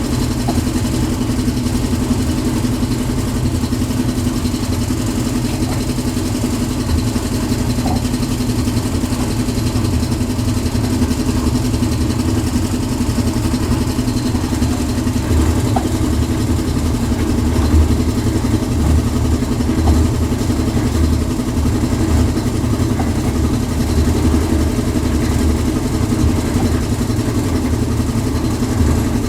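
Concrete mixer machine's engine running steadily, a constant low drone.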